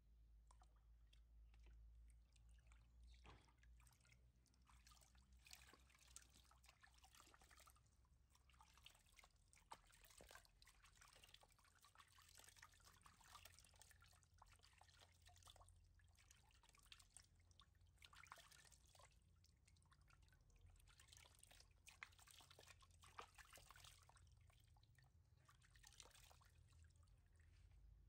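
Faint water pouring and dripping into a plastic basin, an irregular patter of drips and small splashes as water is scooped and poured over a baby monkey being bathed.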